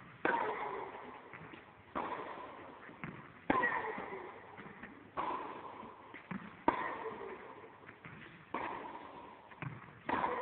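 Tennis rally: a ball struck back and forth with racquets and bouncing on a hard court, a sharp pop about every one and a half seconds, each ringing on in a long echo in the large empty hall.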